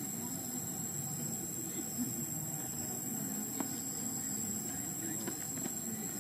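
Forest ambience: a steady high-pitched insect drone over a low murmur, with a couple of faint clicks in the second half.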